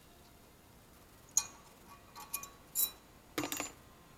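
Light metallic clicks and clinks, about five in a couple of seconds, as old sheet-metal brake pad clips are pried off the caliper bracket.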